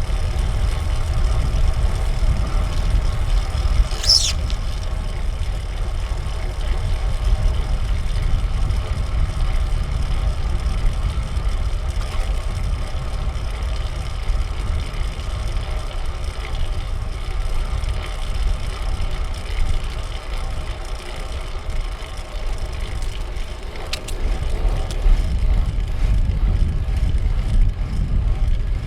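Riding a fixed-gear bicycle: wind buffets a small action camera's microphone as a steady low rumble, over constant road and drivetrain noise. A brief high chirp sounds about four seconds in.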